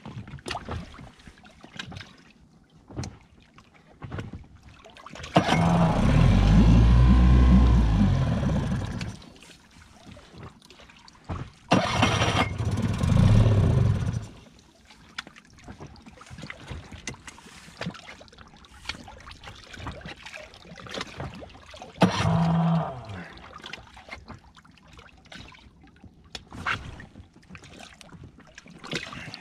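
Tohatsu 9.8 hp four-stroke outboard failing to restart. There are three goes on its electric starter: the first, about five seconds in, runs about three and a half seconds with its pitch rising and falling; the second runs about two seconds; the third, about two-thirds of the way through, is brief. The motor does not keep running.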